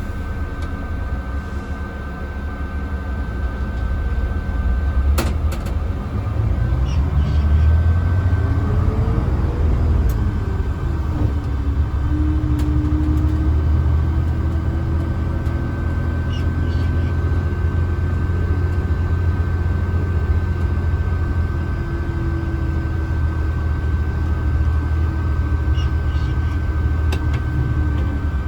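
Mercedes-Benz O307 bus's diesel engine heard from inside the cabin, revving up as the bus pulls away and then dropping in pitch about ten seconds in. It then runs steadily and eases off near the end. A steady high whine and one sharp click about five seconds in sit alongside it.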